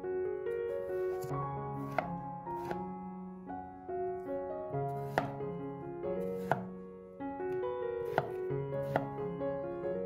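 Kitchen knife cutting through peeled raw potatoes and knocking on a wooden cutting board: several sharp chops at uneven intervals, over background music of held notes.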